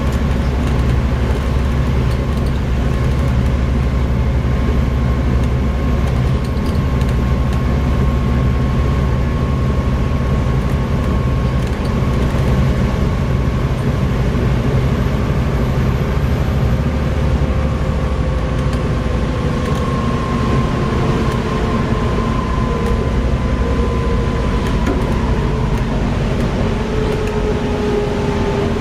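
Volvo B7TL double-decker bus on the move, heard on board: its six-cylinder diesel engine and drivetrain run with a steady heavy drone and a thin whine that slides a little lower in pitch in the second half.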